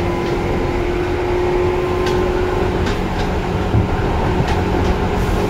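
Seibu 2000 series electric train running, heard from aboard: steady rumble of the wheels on the rails with a motor hum, and a few clicks from rail joints. About three seconds in, the hum gives way to a lower tone.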